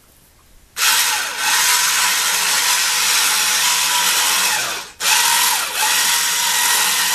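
Powered winch motor hauling the rope to pull drop pipe up out of a water well. It runs loud for about four seconds, stops for an instant, then starts again.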